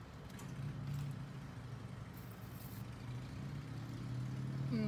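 A motor vehicle engine running close by: a steady low hum that grows louder toward the end.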